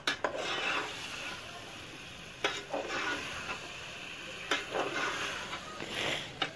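Slotted metal spoon stirring and scraping potatoes and fenugreek leaves in a metal pot, clinking sharply against the pot a few times, over a steady sizzle of the frying vegetables.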